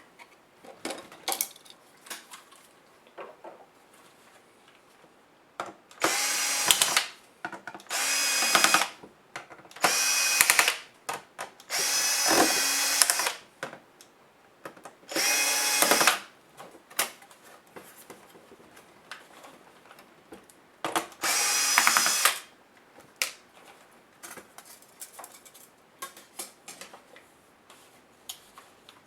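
Electric screwdriver running in six short bursts of about a second each, the fourth a little longer, backing screws out of a laptop case. Small clicks and taps of handling come between the bursts.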